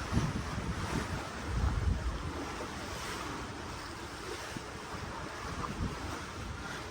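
Ocean water rushing and splashing, with wind buffeting the microphone in low gusts, heaviest in the first couple of seconds.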